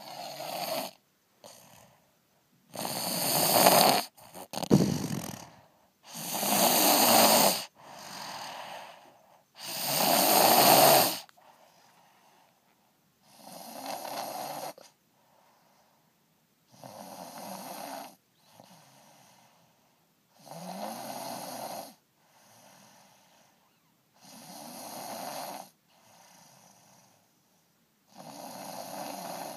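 Snoring, one snore on each breath about every three to four seconds, with a fainter breath between snores. The first few snores are much louder than the ones that follow.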